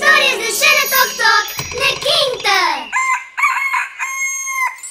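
A rooster clucking in a quick run of short calls, then crowing cock-a-doodle-doo about three seconds in, the crow ending on a long held note just before the end.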